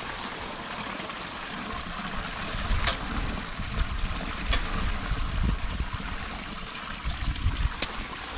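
Storm water running, a steady rush with an uneven low rumble underneath, and a few short sharp clicks or knocks about three, four and a half and eight seconds in.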